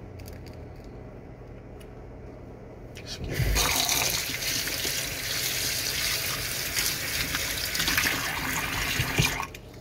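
Kitchen faucet turned on about three seconds in, water running steadily into a stainless steel sink and drain, then shut off shortly before the end.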